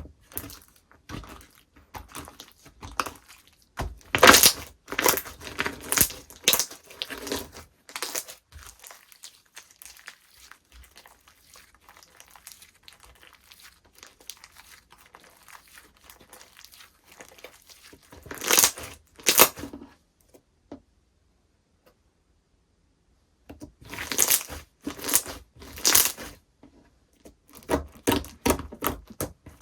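Slime being worked by hand, stretched, folded and pressed, giving bursts of crackling and popping clicks with quieter stretches between. There is a near-silent pause a little after the middle.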